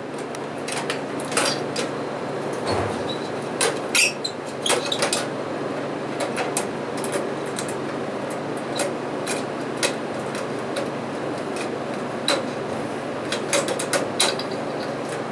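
Scattered light clicks and knocks of a fluorescent tube's end pins being worked into the tombstone lampholder sockets and twisted to lock, over a steady low hum.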